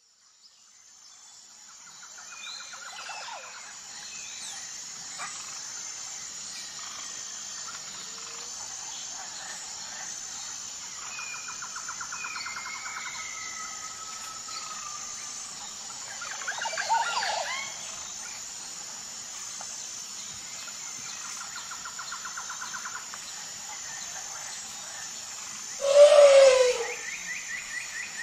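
Outdoor nature ambience: a steady high insect drone with various birds chirping, trilling and whistling. A louder, pitched animal call comes near the end.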